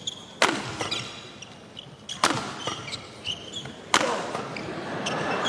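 Badminton rackets striking a shuttlecock three times during a rally, the hits coming about every one and a half to two seconds. Short squeaks from players' shoes on the court floor fall between the hits.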